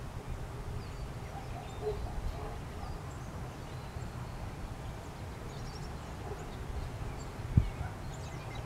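Outdoor background noise: a steady low rumble with faint chirps now and then, and a single dull thump about seven and a half seconds in.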